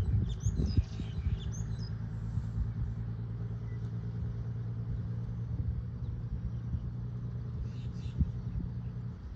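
An engine idling steadily with a low hum that cuts off right at the end. Birds chirp briefly in the first two seconds and again about eight seconds in.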